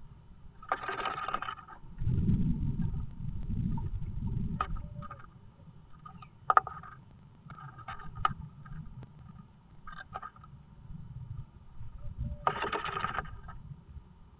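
A great tit rustling and scraping moss and dry grass about inside a wooden nest box as it builds its nest, with dull bumps against the box and scattered sharp taps. Two louder rustling bursts come about a second in and near the end.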